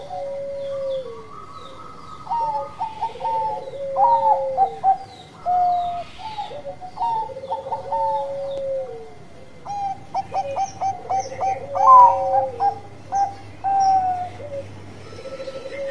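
Bangkok-type zebra dove (perkutut) cooing in full song: about five repeated phrases, each a quick run of short stuttering notes ending in a long held low coo.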